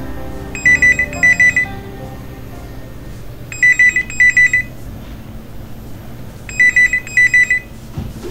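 Corded landline telephone's electronic ringer ringing in a double-ring pattern: three pairs of short trilling rings, about three seconds apart. A click near the end as the handset is lifted.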